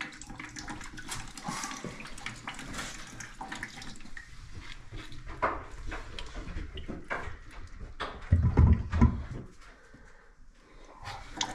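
Plastic water-filter cartridge and housing being handled as a new sediment filter is set into its housing: scraping, clicks and knocks, with a few heavier low bumps about eight seconds in.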